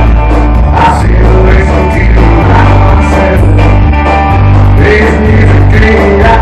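Live rock and roll band playing loud: electric guitars and drums over a bass line that steps from note to note about twice a second.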